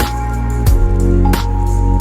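Background music: sustained chords with a struck accent about every two-thirds of a second.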